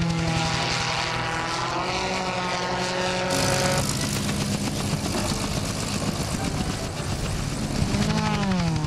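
Gyroplane's engine and pusher propeller running at high power, a loud steady drone with a sudden change about a third of the way in and its pitch sliding down near the end.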